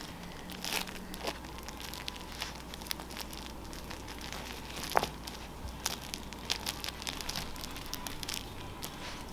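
A Shih Tzu nosing and chewing at a takeout-box dog toy to get the treat hidden inside, making scattered crinkling and crackling, with one louder crackle about halfway through.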